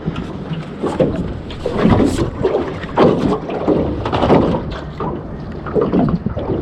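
Water slapping against the hull of a small boat in irregular surges, with wind buffeting the microphone.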